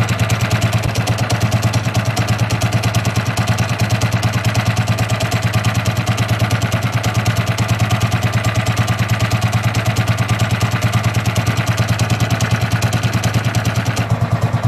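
Predator 212cc Ghost single-cylinder kart engine idling with an even pulsing beat, its clutch and drive chain rattling as it runs. The engine is vibrating badly, and the owner suspects some sort of clearance or crank problem behind the noise.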